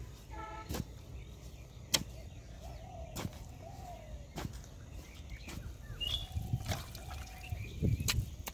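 A digging tool's metal blade chopping into wet clay mud with sharp knocks about every second, and wet thuds as clods are lifted out and dropped. Near the end, a louder, low wet squelching as a hand works in the muddy water.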